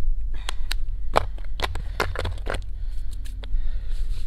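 Microspikes being pulled over a hiking boot: a run of sharp clicks and clinks from the spikes' chains and rubber harness, bunched in the first half, over a steady low rumble.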